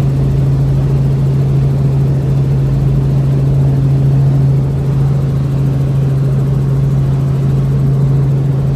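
Helicopter engine and rotor noise heard inside the cabin: a loud, steady drone with a strong constant low hum.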